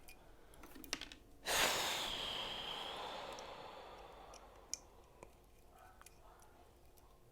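A long, heavy sigh of frustration, a rush of breath that starts suddenly and fades over about three seconds. A few small clicks of a knife's clip screws and hardware come before and after it.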